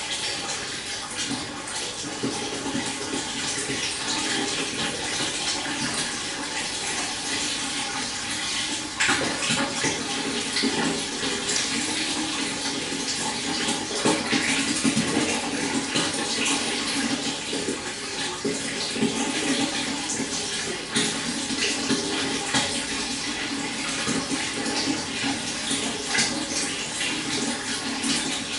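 A small stream babbling and splashing steadily, running water with no let-up.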